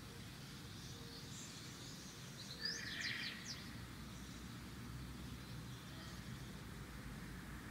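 A bird chirping faintly in the background, with a brief, louder run of quick high chirps about three seconds in, over a steady low background hum.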